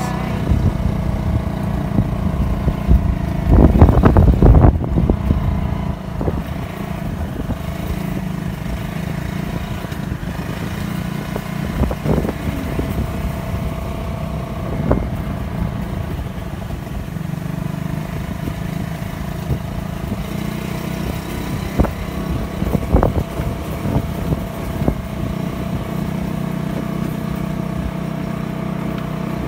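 Motorcycle engine running steadily on a rough dirt track. A loud clattering stretch comes about four seconds in, and a few sharp knocks follow later.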